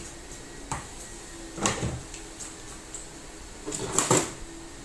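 Knocks and clatter of feeding-bottle parts and a cleaning brush being handled and set down in a container. There is one knock under a second in, a louder one near the two-second mark, and a quick cluster of clatters near the end.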